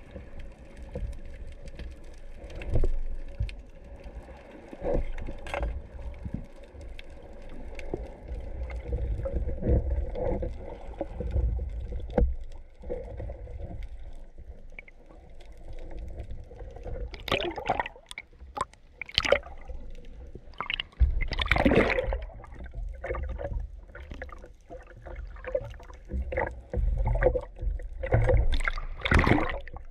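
Underwater sound picked up by a speargun-mounted camera: a low rumble of moving water with scattered clicks and knocks from handling the gun and line. In the second half come several louder gurgling rushes of water.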